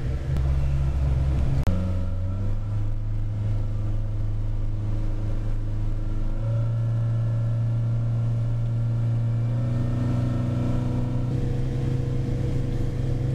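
Boat engine running at cruising speed under way, a steady low drone heard from inside the pilothouse cabin. Its note shifts a little about two seconds in and again around the middle.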